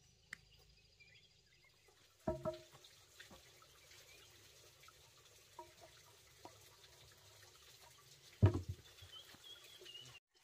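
Wooden knocks and thuds from a large cut tree-stump section being tipped over and handled on the ground. There is a cluster of hollow-sounding knocks about two seconds in, lighter knocks in the middle, and a heavy low thud about eight and a half seconds in, the loudest sound, as the stump comes down.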